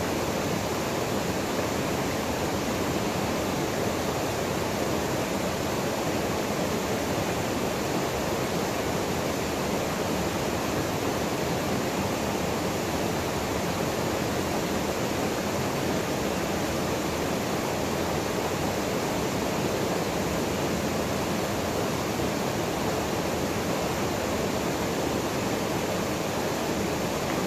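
Janet's Foss waterfall pouring into its plunge pool: a steady rushing of falling water that holds an even level throughout.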